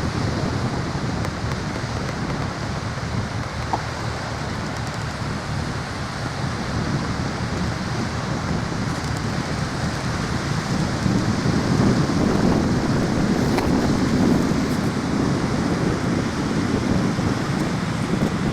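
Wind blowing on the microphone over the steady wash of sea waves, getting louder and heavier about eleven seconds in.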